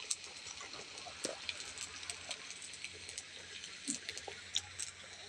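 A pot of broth bubbling on a charcoal stove: scattered small pops and crackles over a steady high hiss.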